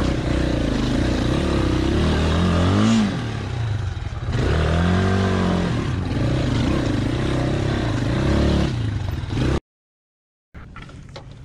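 Motorcycle engine under way over a loose, rocky track, its pitch rising and falling as the throttle is opened and closed, easing off about three seconds in before picking up again. The sound cuts out suddenly about a second and a half before the end, then returns as quieter background noise with a few clicks.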